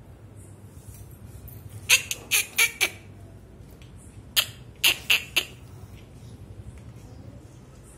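A metal tin being knocked and handled: two quick runs of four sharp metallic clanks, a couple of seconds apart, over a steady low hum.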